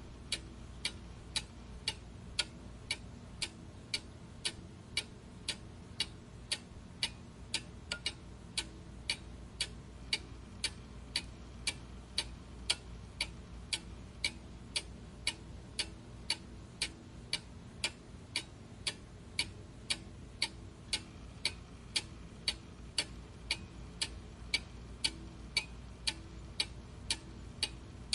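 Clock ticking steadily, about two sharp, even ticks a second.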